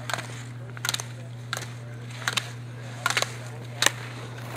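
Slalom skis carving turns on hard-packed snow: a short scrape of the ski edges with each turn, about six in a row, roughly one every three-quarters of a second, over a steady low electrical hum.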